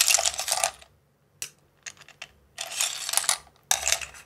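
Blanched blood cockles in their shells clattering against each other as they are tipped into the som tam mortar, in three short bursts of rattling clicks.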